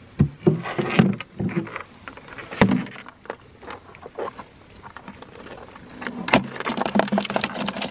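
Irregular hard knocks and clatter of freshwater crayfish (koura) being handled and dropped into a plastic chilly bin against hard plastic ice packs. From about six seconds in, a fast, dense rattling takes over.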